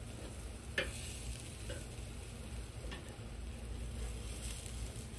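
Tri-tip searing on a charcoal grill grate, sizzling steadily. Three light clicks of metal tongs on the meat and grate come about a second in, just under two seconds in and about three seconds in.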